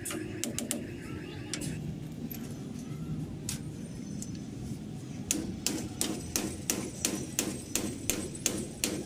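Quick light taps of hand work on a truck's front spindle parts: a few sharp clicks at the start, then an even run of about three taps a second from about five seconds in.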